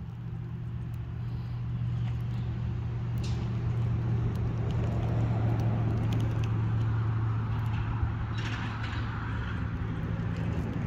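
A welcome mat burning on a grate over a hollow tree-stump fire: flames rushing, with scattered sharp crackles and pops, over a steady low hum. The sound grows louder over the first couple of seconds.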